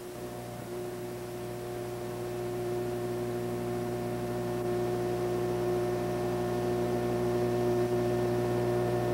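A steady hum of several held tones at once, slowly growing louder.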